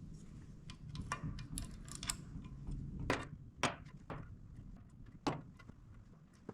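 Scattered light clicks and knocks of tools and parts being handled while valve springs are removed from a 12-valve Cummins cylinder head, the sharpest a little after three seconds and again just past five seconds.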